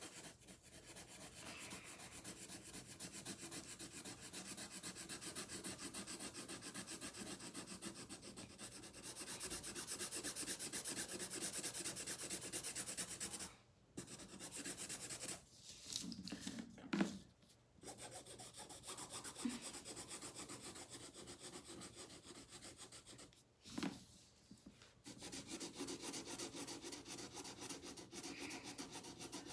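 Felt-tip marker scribbling on paper in rapid back-and-forth strokes, colouring in an area, stopping briefly a few times around the middle.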